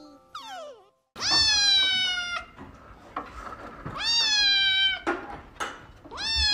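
A grey-and-white kitten meowing: three long, drawn-out meows about two and a half seconds apart, each rising at the start and then sagging slightly in pitch.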